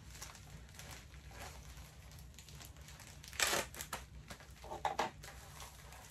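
Plastic poly mailer bag crinkling as it is pulled and torn open by hand, loudest in a sharp rip about three and a half seconds in.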